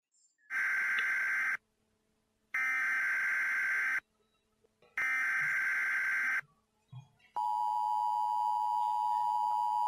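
Emergency Alert System broadcast: three short bursts of screeching data tone about a second apart, then the steady two-tone attention signal comes on sharply about seven seconds in and holds.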